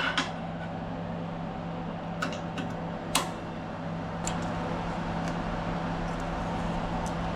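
A steady mechanical hum, like a motor running, with a few light clicks and taps over it.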